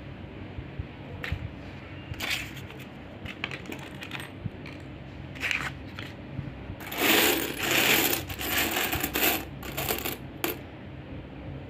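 Small hard objects clinking and jingling: a few separate clicks, then a dense clatter lasting about two and a half seconds past the middle, and two more clinks near the end, over a steady low hum.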